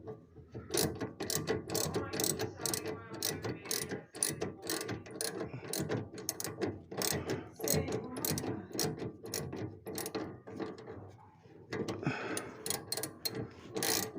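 Ratchet wrench clicking in quick, repeated strokes as it tightens a nut on the stabilizer bar fixing, which has a piece of inner-tube rubber fitted as a makeshift bushing to stop a knock. The clicking pauses briefly about three quarters of the way through, then resumes.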